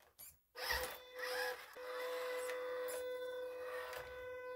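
Electric motor and gears of an MN78 1/12-scale RC crawler whining at a steady pitch as it drives on a wooden tabletop, with a short break about a second and a half in.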